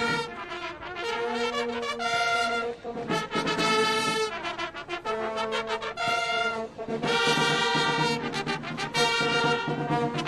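Brass fanfare: trumpets and trombones playing a series of long held notes with short breaks between them.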